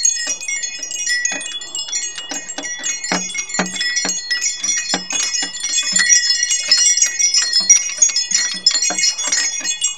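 Hanging butterfly-shaped bell chime (kalembang) tinkling continuously, its many small strikes ringing out in high, overlapping tones.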